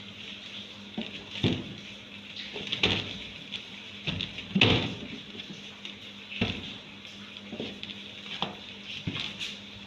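Hands kneading and pressing crumbly pie dough in a metal tray: irregular soft thumps and knocks of dough and hands against the tray, the loudest a little before halfway.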